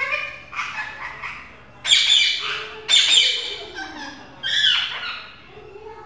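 Rose-ringed (Indian ringneck) parakeet calling: a run of about half a dozen loud, high calls, the loudest about two and three seconds in.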